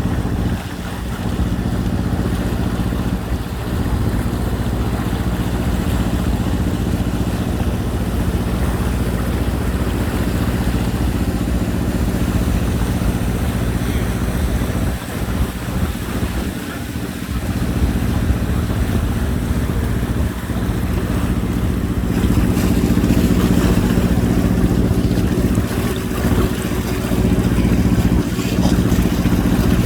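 Boat engine running steadily under way, a low drone that grows a little louder about two-thirds of the way through.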